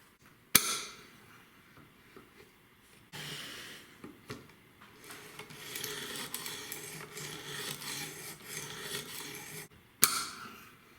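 Knife blade scraping repeatedly against a sharpener in quick strokes for several seconds. A sharp knock comes about half a second in and another near the end, each ringing briefly.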